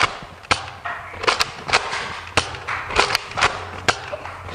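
Nerf foam-dart blasters firing and darts striking cardboard boxes and walls: an irregular run of about ten sharp clicks and knocks, some in quick pairs.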